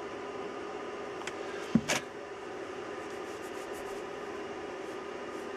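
Steady background hum with a light click and then a short, sharper knock about two seconds in, from hand tools and an oil can being handled on a bench.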